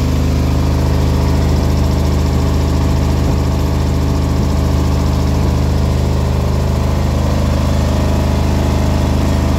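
Montoya 5 HP belt-driven piston air compressor running steadily under its FAW electric motor, with a loud, even machine hum.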